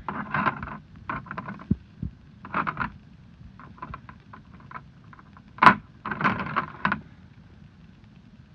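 Plastic LEGO bricks being handled and fitted together, rattling and clicking in short irregular bursts, with one sharp click a little over halfway through.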